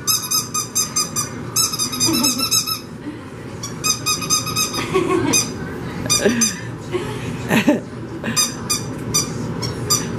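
Squeaky dog toy squeezed over and over, giving quick runs of sharp squeaks separated by short pauses.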